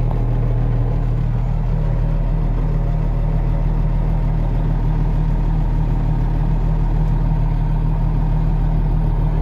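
Tractor's diesel engine running steadily at a constant speed, a low, even drone heard from inside the cab.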